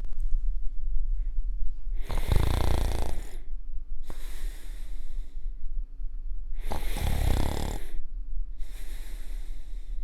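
A person snoring: two snores about four and a half seconds apart, each a low rattling rumble followed by a hissing breath, over a steady low hum.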